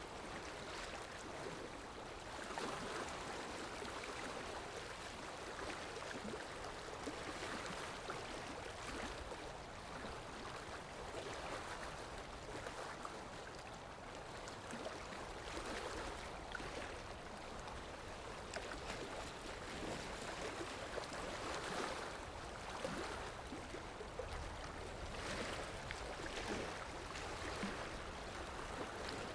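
Muddy floodwater of a flash flood rushing down a desert river channel: a steady, churning rush that swells and eases slightly.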